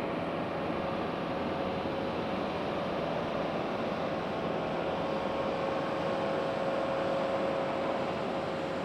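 The four nine-cylinder Wright R-1820 Cyclone radial engines of a B-17 Flying Fortress running as the bomber taxis: a steady drone with a humming tone that swells slightly near the end.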